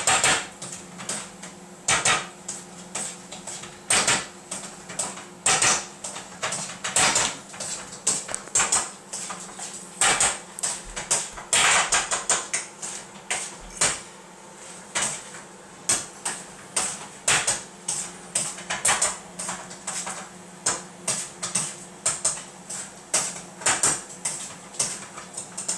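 Molten candle wax bubbling around high-voltage coil windings in a steel pan, crackling and popping irregularly as air works out of the windings, over a steady low hum.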